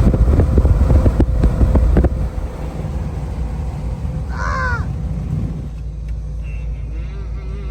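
Road rumble of a moving truck, with a cluster of sharp rattles and knocks in the first two seconds. A brief call with a bending pitch sounds about halfway through.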